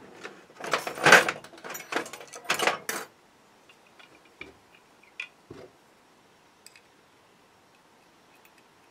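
Tools and small metal parts being handled and set down on a workbench: a couple of seconds of clattering and rattling, then a few light clicks.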